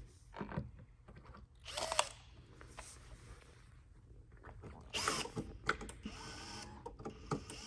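Cordless drill driving small screws into a plastic switch housing in short bursts, about two seconds in and again about five seconds in, with light handling clicks of the parts between them.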